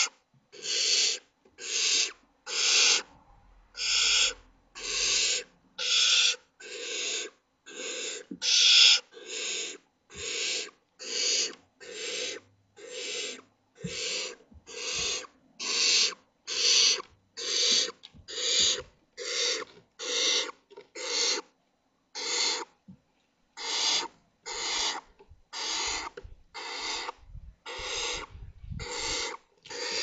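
Barn owl chicks giving rasping, hissing begging calls (the nestlings' 'snoring' food call), repeated about every three-quarters of a second, with a short pause about two-thirds of the way through. Faint low bumps near the end come from the chicks shifting in the nest box.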